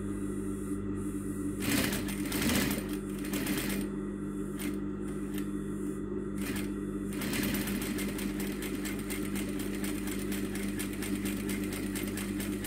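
Juki DDL-8100e single-needle lockstitch industrial sewing machine sewing denim slowly, its clutch motor humming steadily underneath. For about the first seven seconds the stitches come one at a time as separate clicks; after that they run together into a continuous, even ticking. The clutch is being slipped to hold the machine down to a crawl.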